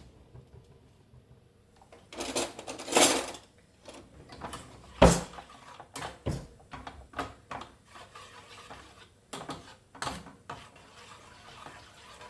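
Water poured into a pan of jaggery, heard as a short rush of noise, then a loud clunk about five seconds in. A run of lighter knocks and clinks of pots and utensils follows.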